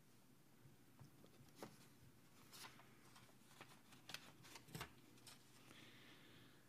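Near silence: room tone with a scatter of faint, short clicks and rustles.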